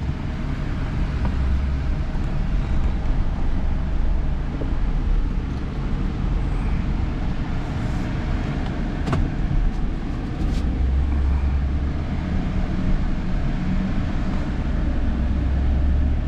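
A vehicle driving along a road: steady low engine and road rumble, with a few light clicks about 8 to 10 seconds in.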